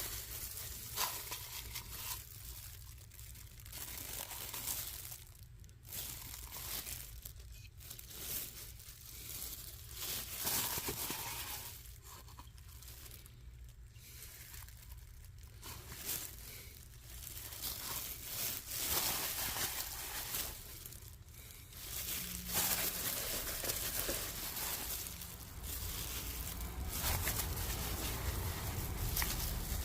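Crinkling and rustling, as of plastic packaging, coming and going irregularly while small parts are handled.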